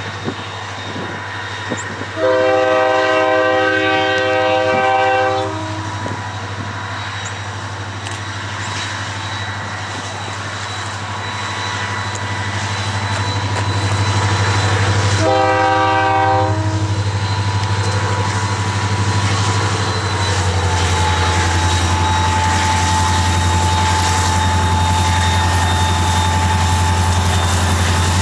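Union Pacific SD40-2 diesel locomotive, its EMD 16-cylinder two-stroke engine running with a steady low drone and a steady whine, sounds its multi-note air horn twice: a long blast a couple of seconds in and a shorter one about halfway through. The engine grows louder in the second half.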